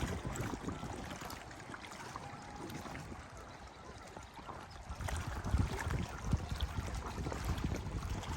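Lake water lapping gently, with wind buffeting the microphone in low rumbling gusts. It goes quieter for a few seconds in the middle and picks up again about five seconds in.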